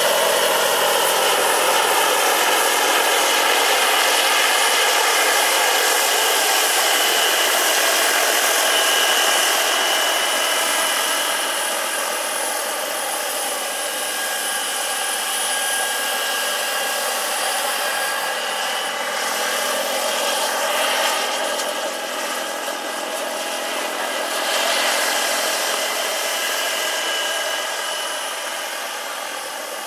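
Turbine engine and rotors of a large radio-controlled scale model Eurocopter EC-120 B Colibri helicopter in flight: a continuous turbine whine with several steady tones over rotor noise. It grows gradually fainter over the second half as the helicopter climbs away.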